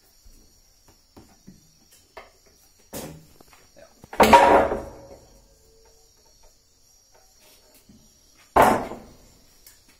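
A homemade steel pipe clamp knocking against wooden boards as it is shifted and set down: a light knock about three seconds in, a loud knock with a short ringing tail just after four seconds, and another loud knock near the end.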